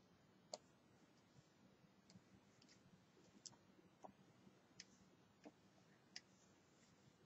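Faint, irregular clicks of a Wacom pen nib tapping on the Cintiq 21UX pen display's screen as strokes start and end, about one a second.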